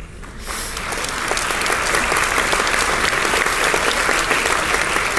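Audience applauding, with one pair of hands clapping close by; it starts about half a second in and swells to a steady full applause within a second or so.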